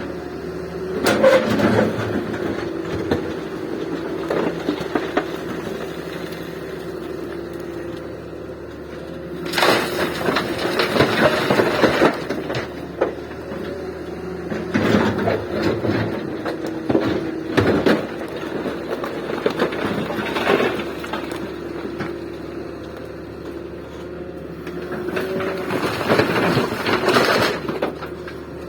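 Daewoo 170W excavator's diesel engine running steadily while it loads a tractor trolley, with repeated louder surges of noise every few seconds as the machine works.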